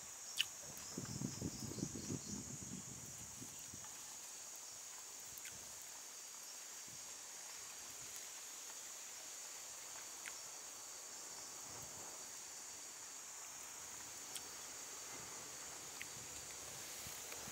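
Steady high insect chorus, with a sharp click just under half a second in and about two seconds of low, close-up eating sounds soon after.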